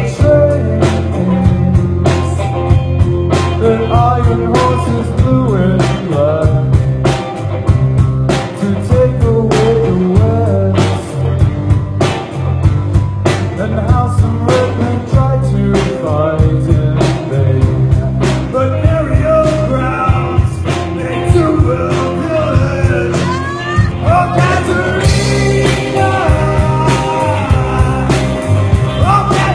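Rock band playing live, a psychedelic rock song with a steady drum beat over bass and gliding melody lines; the cymbals swell near the end.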